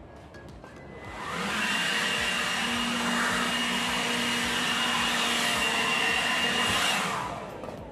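Handheld leaf blower blowing dust off a concrete yard: it spins up about a second in, runs steadily with a high whine, then winds down near the end.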